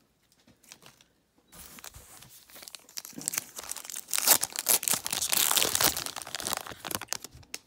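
Foil wrapper of a 2018 Donruss racing card pack being pulled open and crinkled by hand, along its pre-cut edge. It starts about a second and a half in, is loudest in the middle and thins out near the end.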